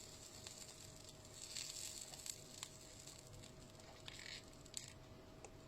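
Faint small clicks and two short hisses of hand work on a lithium battery pack's loose balance-lead wire, over a faint steady whine.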